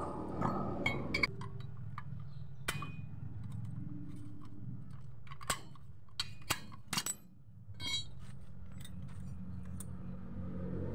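Scattered light metallic clinks and ticks of hand tools and scooter CVT pulley parts being handled, over a faint steady low hum.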